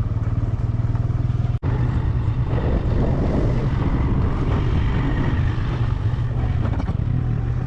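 A vehicle's engine running steadily as it travels along a road, a continuous low hum with even rapid pulsing. The sound drops out for an instant about a second and a half in.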